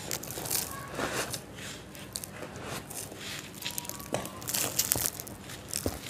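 Dry crumbled yellow sand sifting and trickling from fingers onto a sand pile, a gritty hiss with irregular small crackles from falling crumbs and lumps.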